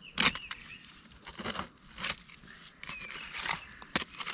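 Digging fork scraping and crunching through stony, debris-filled earth around buried earthenware: irregular scrapes and gritty crunches, the sharpest one right at the start and another near the end.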